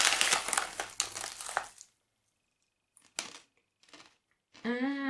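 Foil snack bag crinkling as a hand digs into it, with crunching of a crisp dried ramen-noodle snack, for about the first two seconds; then a few faint crunches while chewing, and a short closed-mouth hum near the end.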